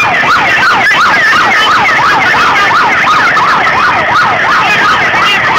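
A siren yelping, its pitch sweeping rapidly up and down about four times a second.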